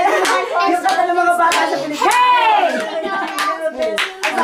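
Children's voices singing and calling out, with one voice sliding up and back down about halfway through, and scattered sharp hand claps.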